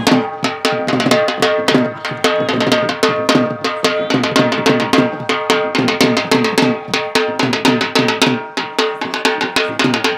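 Dhol drum played in a fast, steady attan rhythm, with a held tone from another instrument sounding over the beat.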